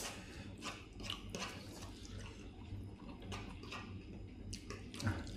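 Eating sounds at a table: scattered light clicks of spoons and chopsticks against plates and bowls, with wet mouth noises of chewing and slurping, over a steady low hum.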